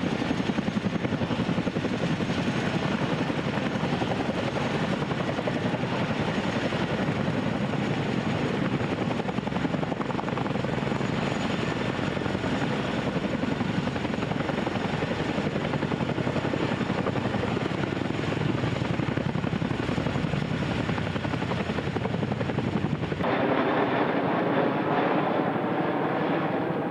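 CH-47 Chinook tandem-rotor helicopter flying, its rotors beating fast and steadily. About four seconds before the end the sound cuts abruptly to a different one with a sweeping tone.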